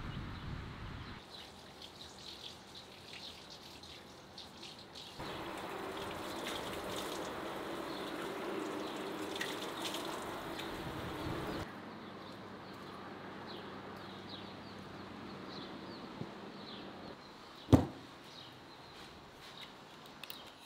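Water running from an outdoor wall-fountain tap as a man splashes and washes his face. The water stops abruptly about halfway through. Small birds chirp throughout, and there is a single sharp knock near the end.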